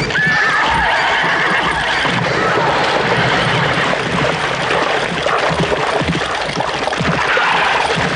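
Horse whinnying: a wavering call falling in pitch just after the start and another near the end, over a dense clatter of hoofbeats.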